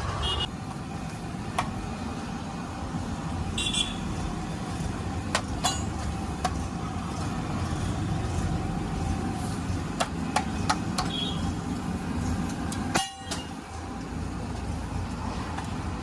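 Busy city street noise: a steady traffic rumble with a few short vehicle horn toots and scattered sharp clinks.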